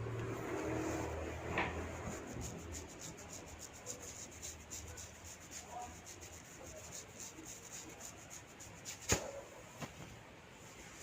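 Hands rubbing and massaging a person's head, a continuous scratchy friction sound with many fine ticks. One sharp click stands out about nine seconds in.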